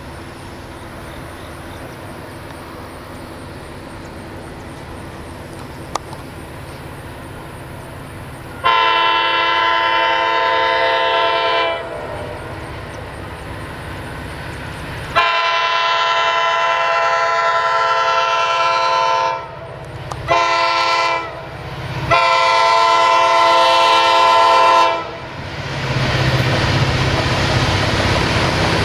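Freight diesel locomotive's multi-chime air horn sounding the grade-crossing signal: two long blasts, a short one and a final long one. Near the end the locomotive's engine and wheels grow louder as it reaches the crossing.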